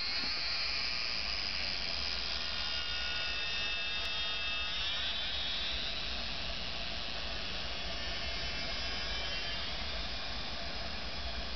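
High buzzing drone of several steady tones from a swarm of about a dozen dragonflies in flight, sounding like little RC planes; the pitch glides to a new level about five seconds in.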